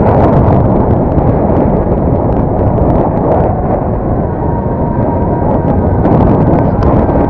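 Heavy wind buffeting on the microphone of a body-mounted camera on a bicycle riding fast downhill: a loud, steady, rough rumble.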